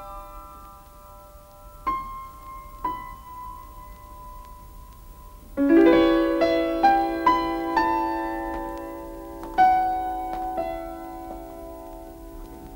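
Background piano music: a few single notes ringing out and fading, then, a little under halfway through, a fuller passage of chords over held lower notes.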